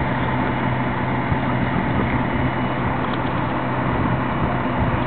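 A fire engine's engine running steadily, a constant low rumble under an even rushing noise.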